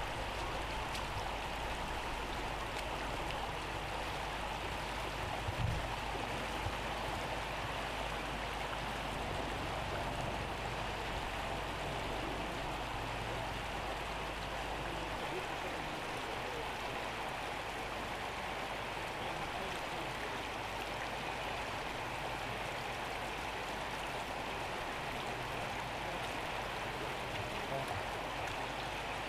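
Steady rushing of floodwater, with a single brief knock about six seconds in.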